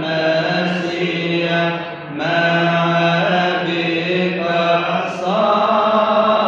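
Coptic Orthodox liturgical chant: a voice sings long ornamented notes over a steady low held tone, with short breaks about two seconds in and again about five seconds in.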